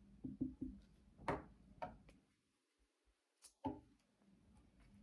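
A plastic selfie stick being handled and adjusted, giving a scatter of light clicks and knocks: three quick ones, then single ones spread out, with a second or so of near silence in the middle.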